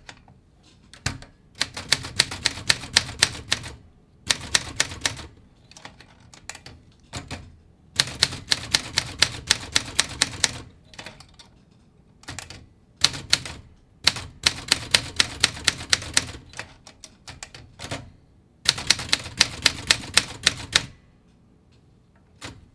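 Olympia SM9 manual typewriter being typed on fast: rapid runs of sharp key strikes, five runs separated by short pauses.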